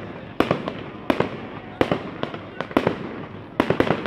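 Aerial fireworks bursting overhead: a string of sharp bangs about two a second, several coming in quick pairs.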